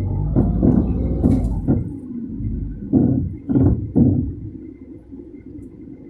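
Inside the cabin of a Tata Tiago: the engine runs with a low rumble, over which come a handful of short thumps and clunks in the first four seconds, then the rumble settles quieter.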